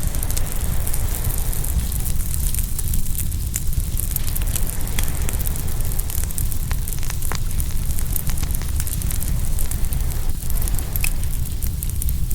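Open wood fire crackling, with many scattered sharp pops over a steady low rumble of surf washing in.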